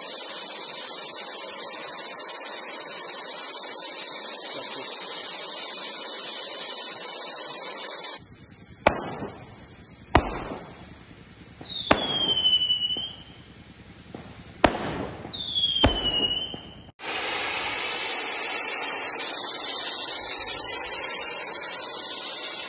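Fountain fireworks spraying sparks with a steady high-pitched hiss. About eight seconds in this gives way to a run of five sharp cracks, two of them followed by a short whistle falling in pitch; near the end the steady hiss resumes.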